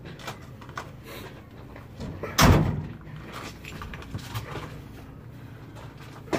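A single heavy thump about two and a half seconds in, then light knocks and scuffs as two men brace against the bare frame of a 1974 Ford F250 pickup to push it.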